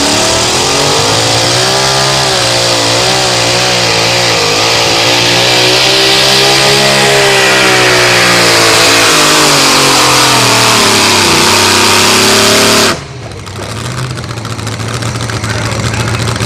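Blown engine of a two-wheel-drive pulling truck at full throttle, dragging a weight-transfer sled, its pitch wavering up and down as the tyres bite and spin. About 13 seconds in, the engine is suddenly cut off at the end of the pull. A lower, steady engine idle is left, slowly growing louder.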